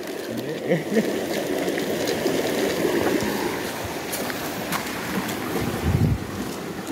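Steady rush of flowing river water, with a dull low thump about six seconds in.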